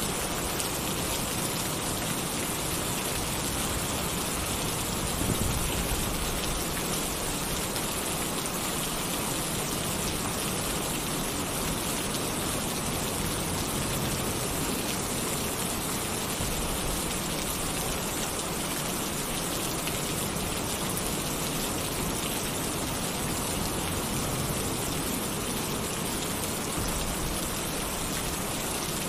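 Heavy rain falling steadily on a tin roof, a dense, even hiss with a brief swell about five seconds in.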